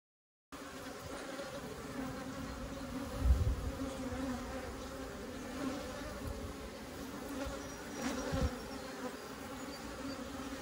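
A mass of honey bees buzzing in a steady hum, starting after half a second of silence, with a dull low thump about three seconds in and another at about eight seconds.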